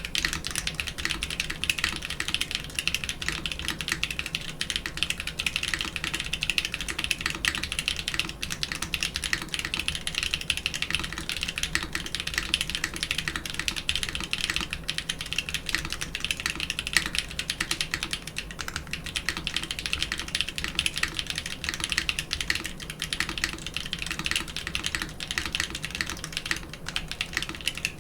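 Mechanical keyboard fitted with doubleshot keycaps being typed on continuously, a dense, even stream of key clacks, heard through an Audio-Technica AT897 shotgun microphone.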